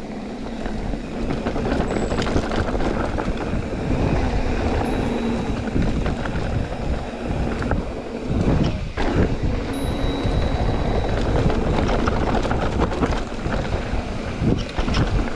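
Electric mountain bike ridden along a dirt trail, heard from a chest-mounted action camera: a continuous rush of wind and tyre rumble with scattered clicks and knocks from the bike.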